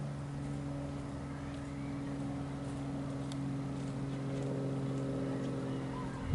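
Steady low engine hum at a constant pitch.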